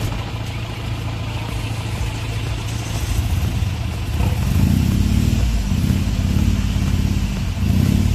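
Off-road 4x4's engine running at a steady low drone, then revving harder from about four seconds in as the vehicle pulls forward, the engine note pulsing and wavering.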